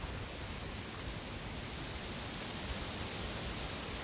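Steady rushing hiss of a small open fire burning nylon and other synthetic clothing, even throughout with no distinct crackles or pops.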